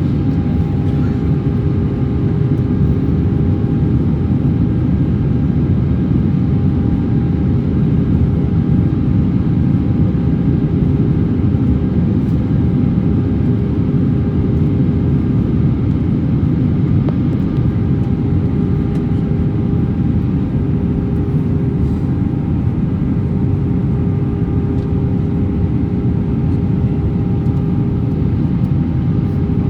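Steady cabin noise inside an Airbus A321-200 in flight: a constant low rush of airflow and engine noise with a faint steady hum on top.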